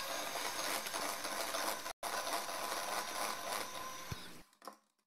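Electric hand mixer whirring steadily as its beaters whisk a thin batter of eggs, sugar, oil and milk in a stainless steel bowl. It cuts out for an instant about two seconds in and stops near the end.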